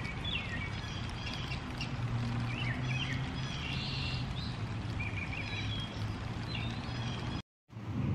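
Backyard ambience: small birds chirping over a steady low hum and an even background hiss. The sound drops out briefly near the end.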